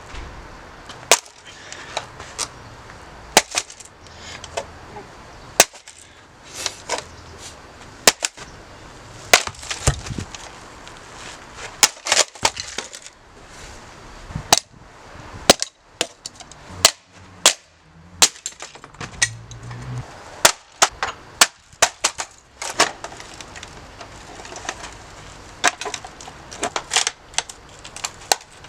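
A coffee machine being smashed: dozens of sharp, hard blows at irregular intervals, some in quick runs of two or three, with breaking sounds.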